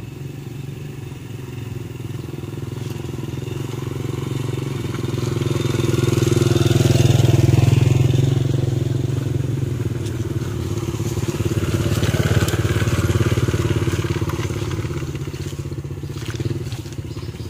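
Small step-through motorcycle engine running as it rides along a dirt path, growing louder as it approaches and passes about seven to eight seconds in, then louder again around twelve seconds before fading as it moves off.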